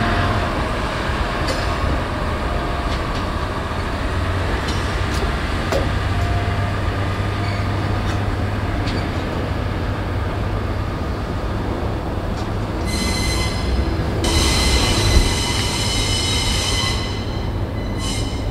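Slow-moving shunting tractor and diesel locomotive on depot track: a steady low engine rumble with a few faint clanks. From about 13 seconds in, the wheels squeal high against the rails for some four seconds, and the squeal comes back briefly near the end.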